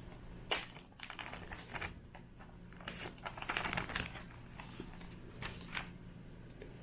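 Unboxing sounds: packaging rustling and crinkling as the keyboard is handled, with a sharp tap about half a second in and scattered light clicks.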